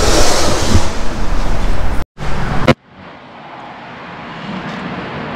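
Loud, rough workshop noise with a bright hiss for about two seconds, cut off after a short break and one more brief burst, then a quiet steady room hum.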